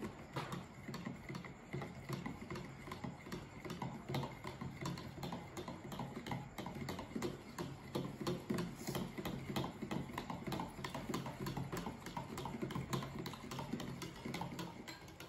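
Metal spoon stirring egg and milk in a plastic measuring jug, knocking against the jug's sides in a rapid, steady clicking.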